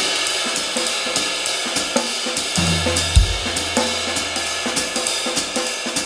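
Upbeat music with a quick, steady drum beat, hi-hat and cymbals, no vocals.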